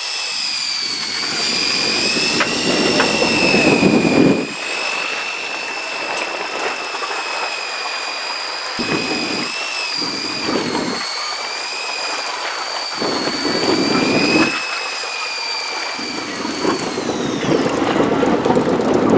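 Electric fishing reel's motor winding in line, a steady high whine that wavers slightly in pitch under load and winds down to a stop near the end. A low rushing noise comes and goes.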